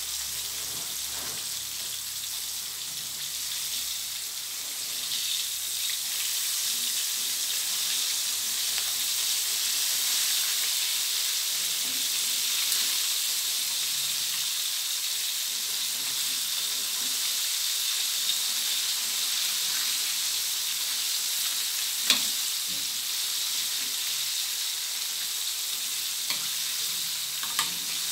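Chicken wings deep-frying in a steel wok of hot oil, a steady sizzle. A sharp metal clink comes late on, and a couple more near the end, as tongs touch the wok while turning the wings.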